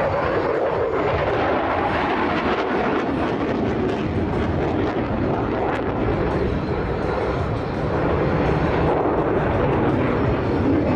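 Dassault Rafale's twin Snecma M88 turbofan engines: a loud, steady jet rush as the fighter climbs through its display, growing a little louder in the last few seconds.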